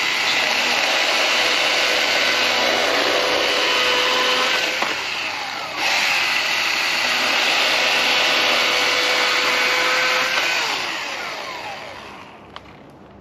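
Gas chainsaw with a new chain running at full throttle through a log, cutting easily. It dips briefly about six seconds in, picks up again, then its revs drop and it winds down near the end.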